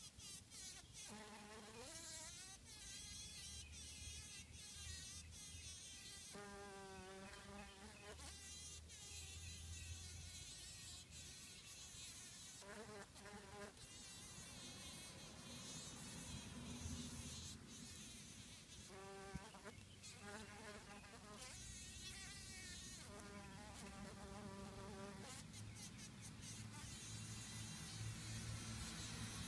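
Honey bee buzzing faintly in repeated short bursts, about six of them, each with a wavering pitch. The buzzing is muffled, as the bee struggles while entangled in a spider's silk under attack by the spider.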